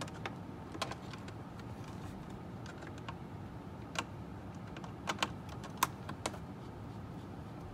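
Scattered light clicks, eight or so at irregular spacing, from a hand screwdriver turning out a T20 Torx screw that holds the glove box into the dashboard.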